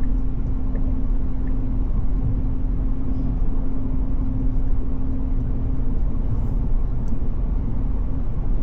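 Steady road noise inside a Tesla Cybertruck's cabin at highway speed on a rain-soaked road: tyres hissing on wet pavement and rain on the body over a low rumble, with a steady low hum throughout.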